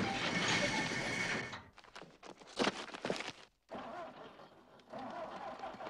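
Farm tractor engine running with a steady whine, then cutting out suddenly about a second and a half in. A few scattered knocks and clatters follow as the machine stops.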